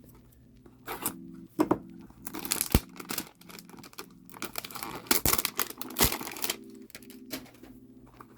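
A mystery box's packaging being torn open by hand: repeated ripping and tearing in short spurts, with a few sharp clicks among them.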